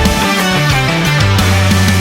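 Loud heavy rock background music with distorted guitars, a moving bass line and a busy drum beat.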